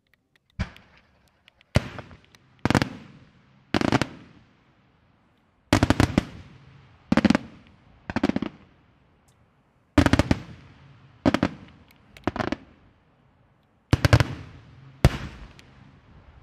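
Daytime fireworks: aerial shells bursting in loud bangs, about a dozen, coming roughly one a second in groups of three or four with short pauses between. Some bursts are quick double or multiple reports, and each bang trails off over about a second.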